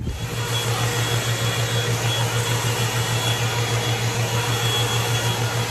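Hot-air styling brush (round-brush hair dryer) running steadily: an even rush of air over a low motor hum.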